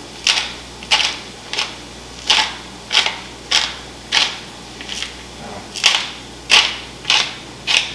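Handheld pepper grinder being twisted, grinding peppercorns: a dry crunching rasp with each turn, about a dozen short strokes at a steady rhythm of roughly one every half second.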